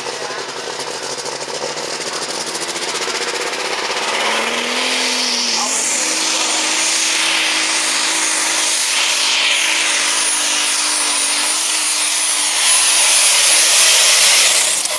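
Superstock pulling tractor's turbocharged diesel engine at full power under load during a pull. The engine note climbs about five seconds in and then holds high under a loud hissing rush, and grows loudest near the end as the tractor and sled pass close by.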